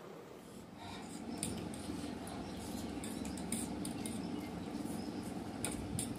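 Metal forks clicking and scraping against plastic food trays during a noodle meal, a few sharp clinks spread through, under a steady low hum that comes in about a second in.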